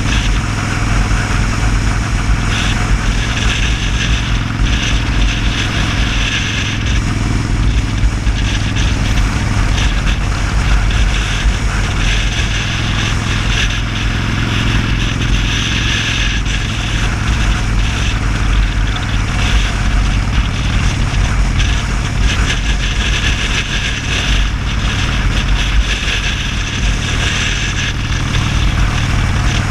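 Motorcycle engine running steadily at cruising speed, with heavy wind rush on the handlebar-mounted camera's microphone.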